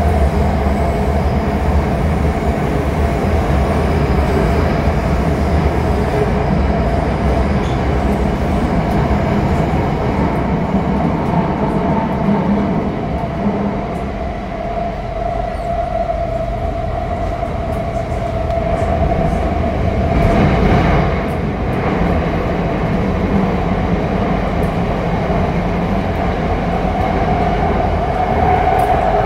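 Interior running noise of a Bombardier MOVIA 456 metro train on Shenzhen Metro Line 1. A steady low rumble from wheels on rail sits under a constant whine, with a short swell of hiss about twenty seconds in.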